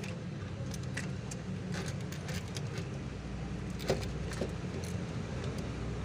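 A steady engine hum runs underneath light metallic clicks and taps of small parts being handled, with a sharper click about four seconds in.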